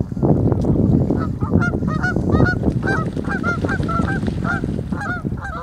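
Canada geese honking: a rapid run of repeated calls, several a second, starting about a second in, over a steady low rumble.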